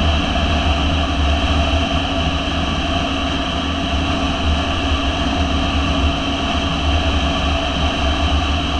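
Motorcycle engine running at a steady cruise with wind and road noise, holding an even pitch with no revving or gear changes.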